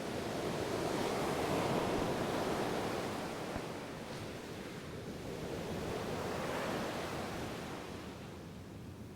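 Ocean waves washing onto a shore: two swells of surf, the first peaking about two seconds in and the second a few seconds later, easing off near the end.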